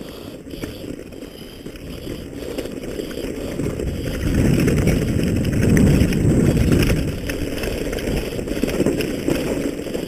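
Wind buffeting the microphone with a low rumble of fast movement over rough ground. It grows louder about four seconds in and eases after about seven seconds.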